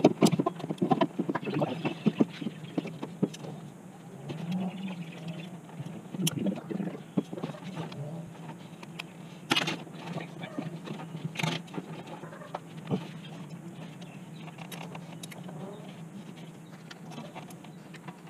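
Scattered clicks and knocks of hands working a metal intake pipe and its C clamp into place at the turbo in a BMW B48 engine bay, over a steady low hum.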